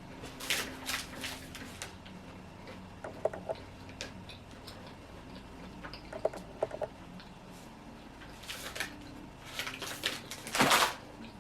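Plastic snack wrapper crinkling and rustling in irregular bursts, with a few small clicks from the packaging being handled; the loudest crackle comes near the end.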